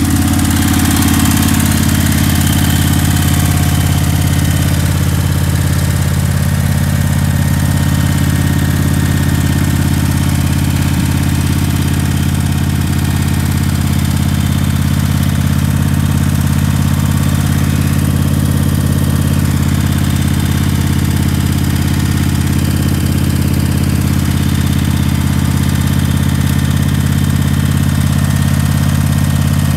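Engine of an XRot remote-controlled tracked slope mower idling steadily.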